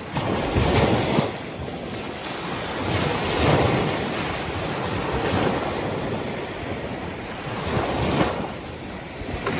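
Ocean surf breaking on a beach, the wash swelling and easing about three times, with wind on the microphone.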